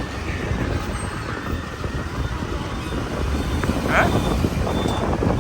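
Road traffic in a jam: a steady low rumble of vehicle engines, with a short high squeal about four seconds in.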